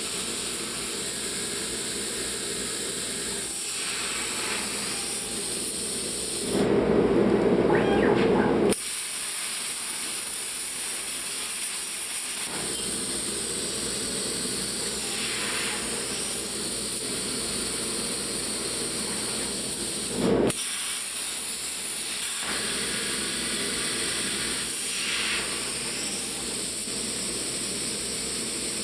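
CNC plasma cutter torch cutting, a steady loud hiss of the plasma arc and air. It gets louder and fuller for about two seconds near a quarter of the way in, and again briefly about two-thirds through.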